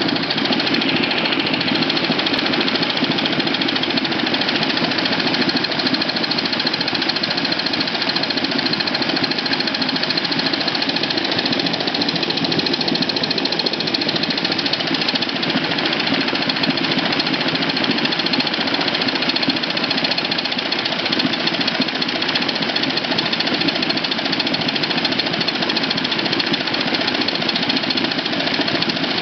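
V-twin 500cc uniflow poppet-valve steam engine running steadily under load, with its propeller churning and splashing the water of a pool.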